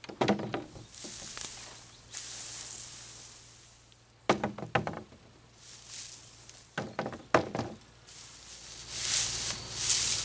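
Rustling and crunching, with three short clusters of knocks: one at the start, one about four seconds in and one about seven seconds in. The rustling grows louder near the end.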